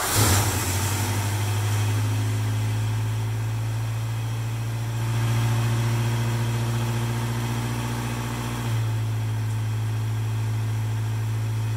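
Toyota 22RE 2.4-litre four-cylinder engine, freshly swapped into an old Toyota pickup, idling steadily just after starting. Its note shifts slightly about nine seconds in.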